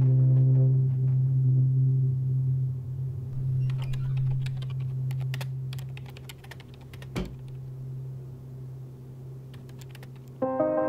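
Laptop keyboard typing: scattered key clicks in two spells, over a low steady hum that slowly fades. There is one dull thump about seven seconds in, and soft piano-like music notes come in just before the end.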